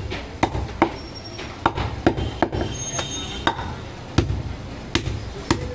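Heavy butcher's knife chopping goat meat down onto a thick wooden chopping block: about ten sharp knocks at an uneven pace, roughly one or two a second.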